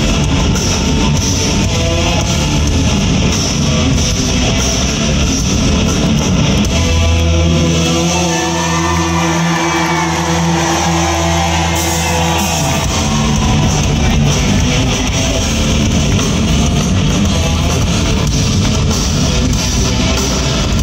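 Hard rock band playing live and loud, electric guitars over bass and drums. About seven seconds in the band holds one long ringing chord for about five seconds without the drum beat, then the full beat comes back in.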